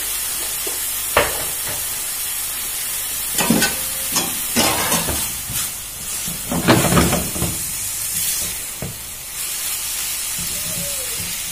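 Minced beef and onion sizzling steadily in a frying pan, with a few short knocks and scrapes in the pan about a second in and again between about three and seven seconds in.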